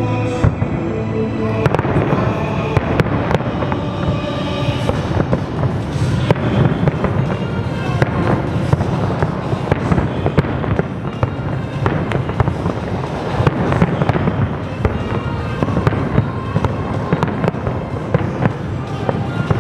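Large fireworks display going off continuously, with many sharp reports in quick succession, and music playing underneath.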